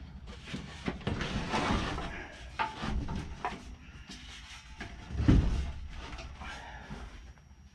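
Handling noise: scattered knocks, clicks, scrapes and rustling, with one heavier thump about five seconds in.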